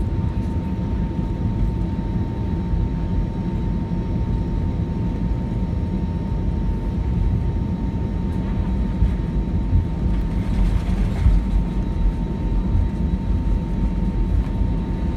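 Cabin noise inside an Airbus A319 on the ground: a steady low rumble with a thin constant whine, and a brief rush of hiss about ten seconds in.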